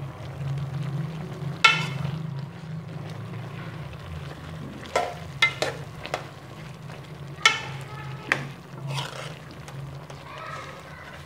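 Kachnar buds, potatoes and chicken being stirred into yogurt masala in an aluminium pan, sizzling gently. A few sharp knocks or scrapes of the stirring utensil against the metal pan stand out, over a low steady hum.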